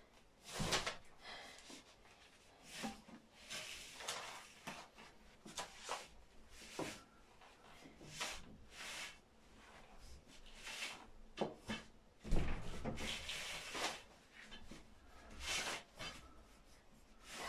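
Handling the fabric mesh base of an IKEA Tuffing bunk bed, with its metal rods in the sleeves: irregular rubbing and rustling with light knocks, and a heavier thump about twelve seconds in.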